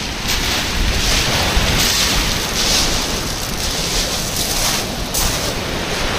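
Wind buffeting the microphone with a heavy low rumble, over the steady hiss of surf on a shingle beach, with irregular surges of hiss.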